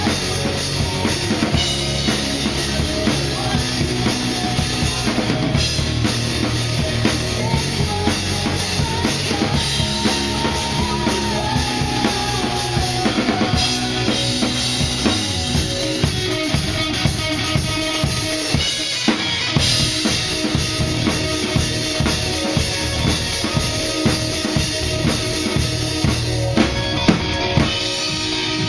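Rock band playing live, with the drum kit loud and close: regular kick and snare hits under the band's pitched instruments.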